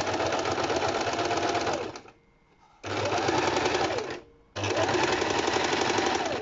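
Lervia electric sewing machine stitching in three runs of rapid needle strokes, the motor speeding up at the start of each run and slowing as it stops, while a folded hem is sewn on a fabric face-mask layer.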